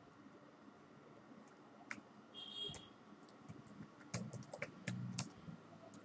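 Faint computer keyboard typing: single key clicks, then a quick run of keystrokes between about four and five seconds in as a web address is typed in. A short scratchy noise comes a little before halfway.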